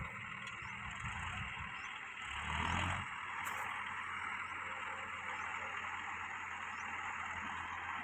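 Backhoe loader's diesel engine running steadily while it digs and loads soil into a tractor trolley. The engine sound swells briefly about two and a half seconds in.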